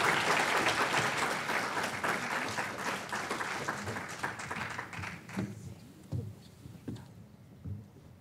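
Audience applauding, dying away over about five seconds. A few soft, low thumps follow near the end.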